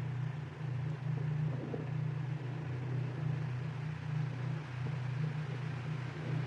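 Steady low electronic drone with a rumbling grain and a soft hiss above it, swelling and easing slightly without a break.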